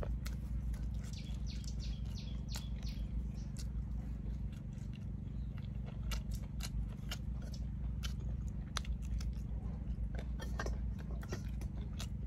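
Close-up mouth sounds of someone eating balut, a fertilised duck egg: chewing with scattered irregular wet clicks and lip smacks. A steady low hum runs underneath.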